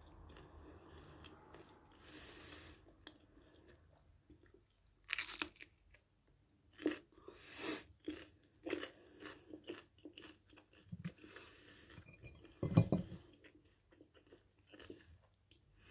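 Close-up crunching and chewing of raw red bell pepper: a sharp bite about five seconds in, then a string of crisp crunches. A louder thump comes near the end.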